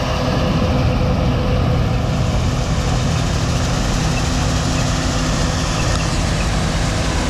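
Heavy farm diesel engine running steadily with an even, unchanging drone.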